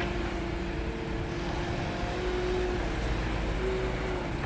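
Concrete mixer truck's engine running steadily, a low rumble with a faint steady hum above it.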